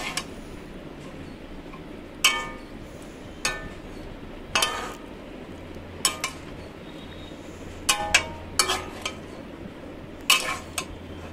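Spatula clinking and scraping against a kadai as chopped bottle-gourd greens and potato are stirred, in irregular knocks a second or two apart with a short metallic ring.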